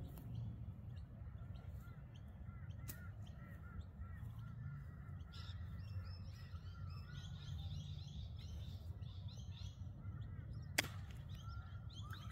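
Birds calling, with a busy run of short chirps and calls in the middle, over a low steady rumble. A single sharp tap sounds near the end.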